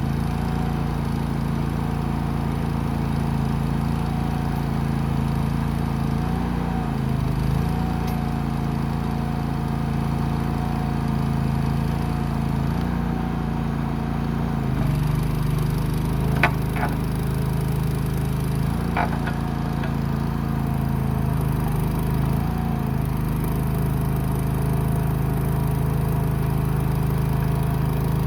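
Small engine of a Go For Digger towable backhoe running steadily, its pitch shifting slightly several times as it works. Two sharp clicks sound in the middle, about two and a half seconds apart.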